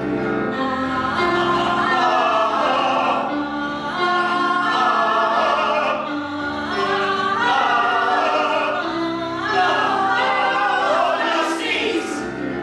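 Several voices singing a song together over sustained instrumental chords.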